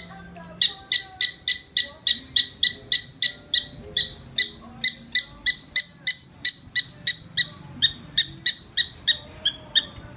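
Prairie dog alarm call: a long run of sharp, high chirping barks, evenly spaced at about three or four a second.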